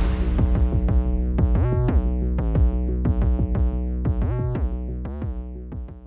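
Electronic background music with a drum-machine beat and synth bass. The high end drops away right at the start, leaving a muffled, steady pulse that fades out near the end.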